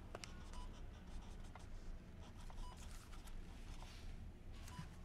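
Faint pen scratching on a small notepad in irregular short strokes, with a few soft short beeps from a hospital monitor.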